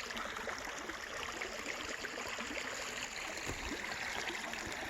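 A small forest stream running over rocks: a steady, even rush of water.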